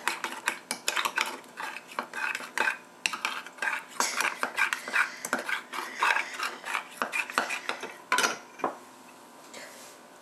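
Metal spoon stirring a cornstarch-and-water slurry in a glass measuring cup, clinking quickly and irregularly against the glass. The clinking stops about two seconds before the end.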